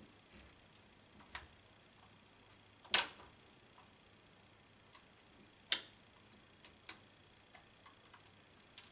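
Faint, scattered clicks and taps of small metal hand tools (a hooked pick, then a small Phillips screwdriver) against the plastic housing of an Arlo Essential camera while working out a tiny screw. Four sharper clicks stand out, the loudest about three seconds in.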